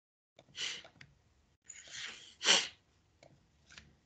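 A person sneezing: two short noisy breaths, then the loud sneeze itself about two and a half seconds in. A few faint clicks follow.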